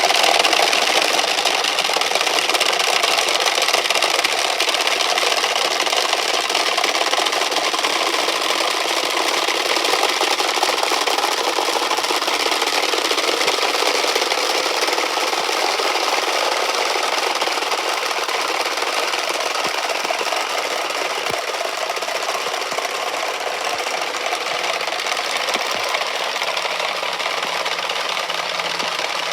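Many wooden Easter rattles (Klappern) clattering together in one dense, continuous racket, slowly getting a little quieter. It is the Holy Week custom of rattling in place of the silent church bells.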